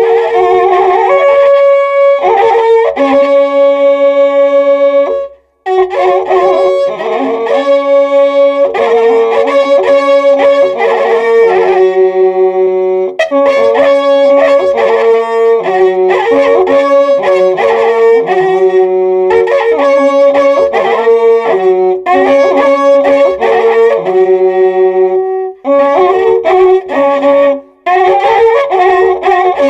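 Two violins playing an Ayacucho toril (herranza) melody together in parallel harmony, long held notes stepping through the tune, with a short break in the playing about five seconds in.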